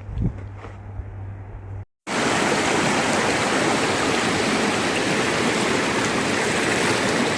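A steady, loud rushing noise that starts abruptly about two seconds in, after a short quieter stretch with a low hum.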